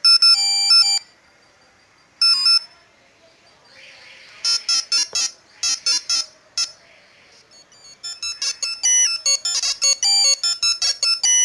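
Classic Nokia 3310 monophonic ringtones played from an Android app: short beeping tunes that start and stop, with a longer tune running on from about eight seconds in.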